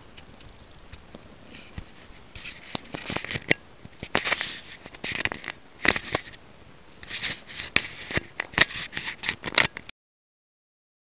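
Domestic cat eating raw meat chunks: wet, crackly chewing and smacking with many sharp clicks, in uneven bursts, cutting off abruptly near the end.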